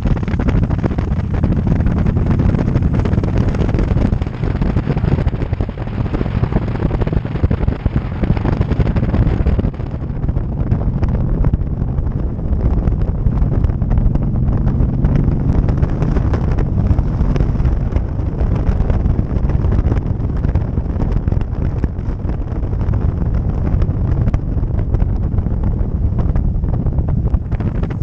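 Steady wind rush buffeting the microphone of a motorcycle-mounted action camera at riding speed, with the motorcycle's engine and road noise running underneath.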